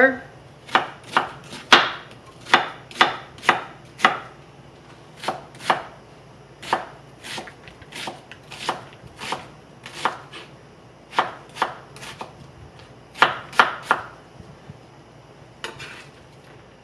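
Chef's knife chopping a yellow onion on a plastic cutting board: a string of sharp, irregular knocks at roughly two a second, stopping near the end.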